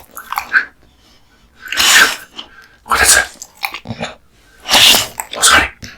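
American Bully dog eating raw meat and bones: about six loud, noisy chomping bursts, each under half a second and roughly a second apart.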